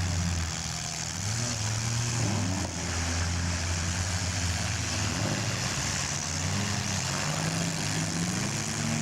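Several compact-car engines running in a demolition derby, revving up and down over and over, over a steady hiss of background noise.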